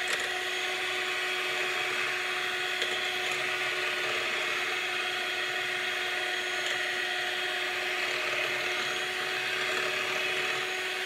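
Electric hand mixer running steadily, its beaters whipping fresh cream and sugar as the cream thickens; a constant motor whine that cuts off suddenly at the end.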